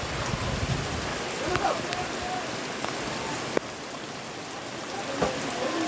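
Heavy rain falling steadily as an even hiss, with faint voices in the background and a single sharp click about three and a half seconds in.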